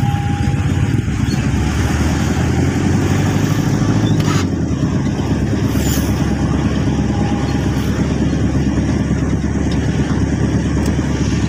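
A car's engine and road noise heard from inside the moving cabin, with the side window open. The engine note shifts about four seconds in.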